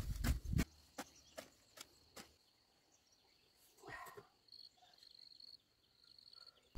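Faint outdoor rural ambience. A few light clicks and ticks come in the first two seconds, a short animal call about four seconds in, and then a thin, high, broken insect trill.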